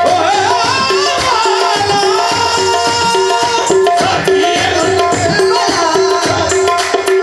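Qawwali music: harmoniums holding steady drones and melody under gliding sung lines, with tabla keeping a steady rhythm.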